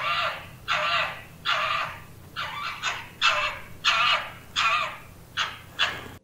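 An animal calling over and over, about nine harsh, rasping calls in a steady run, roughly one every three-quarters of a second.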